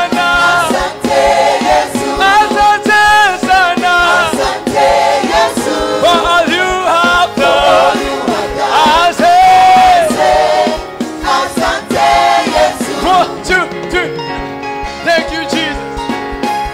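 Gospel choir singing with a male lead vocalist, backed by a band with a steady beat. The music drops to a lighter, quieter passage near the end.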